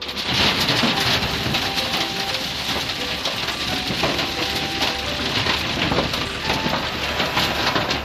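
Rounded river rock pouring from a wheel loader's bucket into a metal-floored truck bed: a dense, continuous clatter of stones striking the metal and one another, starting suddenly at the beginning.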